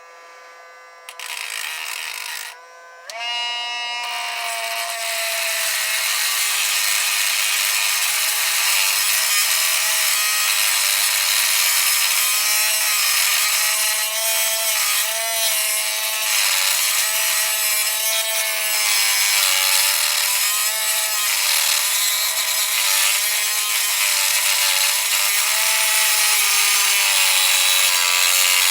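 A high-speed power cutting tool grinds into a case-hardened Master Lock padlock. Its motor whine starts about a second in and stops briefly, then runs on steadily under load, the pitch wavering up and down over a constant harsh grinding hiss.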